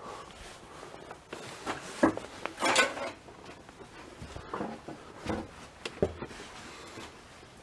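Scattered light knocks and rustles, someone moving among piles of junk and old car parts, with the close sound of a small cluttered room.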